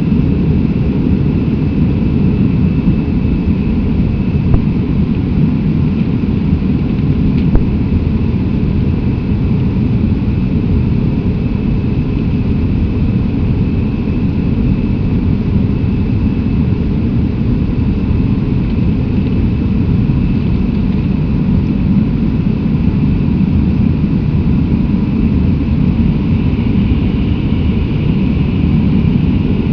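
Airbus A319 airliner in flight: a steady, even low rumble of its jet engines and airflow, with a faint steady high whine above it.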